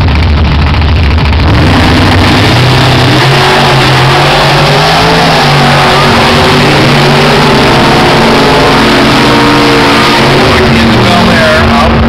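Two gasser drag cars' engines on the starting line, then launching about a second and a half in and running hard down the strip, the engine note climbing and dropping through the gear changes. Very loud throughout.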